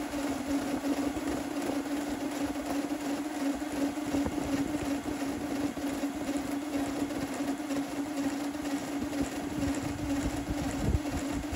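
Voron Trident 3D printer running a print, its stepper motors and fans making a steady drone with one constant hum-tone.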